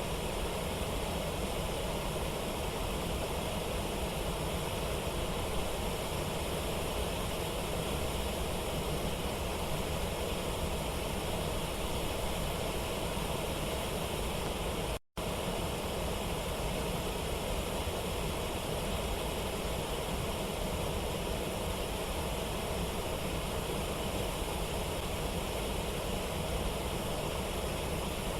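Steady rush of a waterfall and river rapids, an even wash of water noise, with a momentary cut-out about halfway through.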